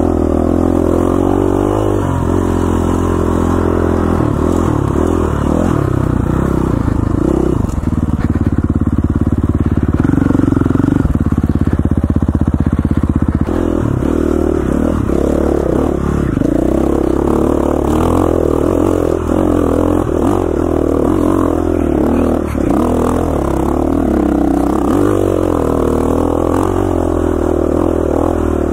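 KTM 450 XCF dirt bike's single-cylinder four-stroke engine running under way, the revs rising and falling with the throttle. For about five seconds near the middle it holds at a higher, steady pitch, then drops suddenly.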